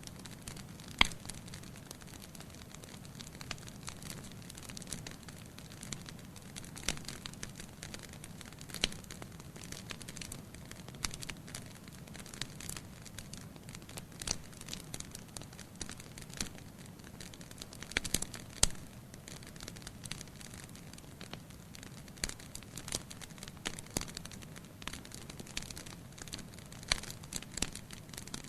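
Wood fire crackling in a fireplace: a steady low hiss with irregular sharp pops and snaps, the loudest about a second in and twice near the middle.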